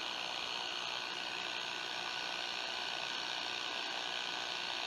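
Steady hiss of static from a Hallicrafters SX-99 receiver's speaker, tuned between stations near 1000 kc with the volume turned up. The antenna compensator is being trimmed to peak this noise during RF alignment.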